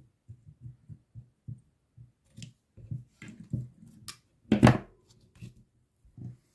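Small hand tools being handled and worked at a bench: a run of soft low knocks, several sharp scraping clicks, and one louder clatter about four and a half seconds in.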